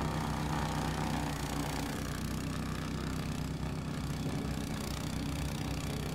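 Small gasoline engine of a two-stage snowblower running steadily as it throws snow.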